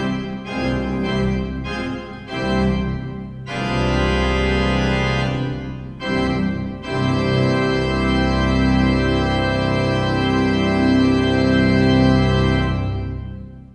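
Pipe organ playing the closing bars of a piece: a few short chords, then a long held full final chord that is released near the end and fades away.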